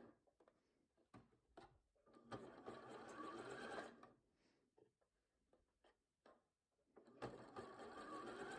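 Bernette b38 computerised sewing machine stitching a zigzag seam through thick knitted wool and a stretched elastic band, in two short runs: one of under two seconds about two seconds in, and another starting near the end, with a couple of faint clicks before the first.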